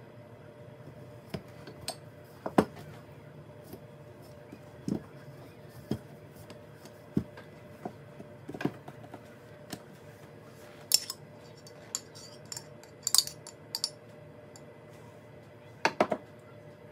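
Wooden rolling pin working pizza dough on a floured countertop, with scattered sharp knocks and clicks as the pin and hands bump the counter, over a steady low hum. Near the end a spoon clinks twice as tomato sauce is spooned onto the dough.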